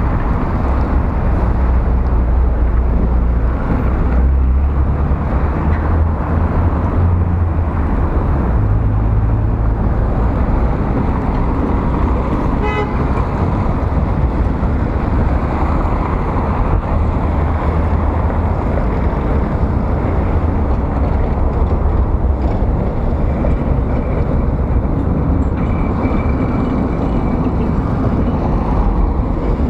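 Steady wind rush and buffeting on the microphone of a moving bicycle, mixed with city traffic: cars running on a wet road. A short faint high tone comes near the end.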